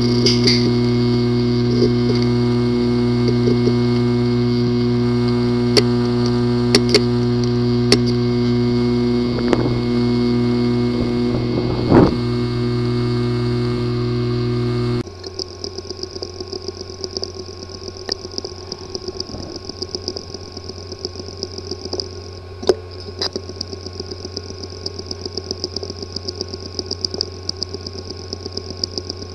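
Two recordings of a failing hard disk drive with a physically damaged disk assembly. The first is a loud, steady buzzing hum with a few sharp clicks. About halfway through it cuts to a quieter drive that ticks and clicks rapidly and irregularly over a faint hum.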